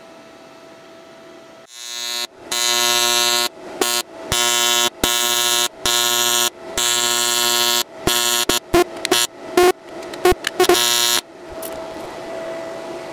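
TIG welding arc on an aluminium practice plate, a loud, even buzz from a YesWelder TIG 200P AC/DC welder. It strikes about two seconds in, breaks off and restrikes several times, then comes as a quick string of short bursts before stopping near the end. A faint steady hum lies underneath before and after.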